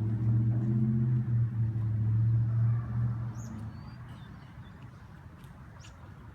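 Low, steady engine hum of a motor vehicle that fades away about three seconds in, with a few faint short bird chirps.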